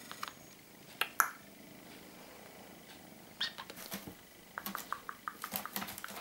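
Maine Coon kitten grooming, licking and nibbling its paw: scattered short clicks and scratchy sounds, in a few clusters with a busy run near the end.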